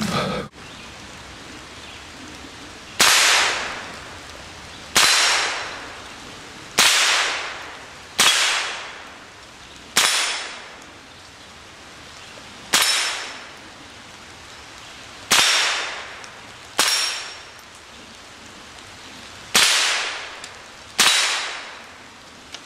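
Ten single .22 rimfire shots from an AR-15 fitted with a CMMG .22 conversion bolt, fired one at a time every one and a half to three seconds, each trailing off over about a second. The magazine is emptied with the tenth shot and the bolt locks open.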